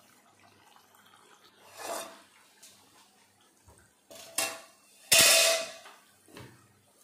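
Metal cookware clanking: a ladle and aluminium pots knock and scrape in a few separate strokes, the loudest and ringing one about five seconds in.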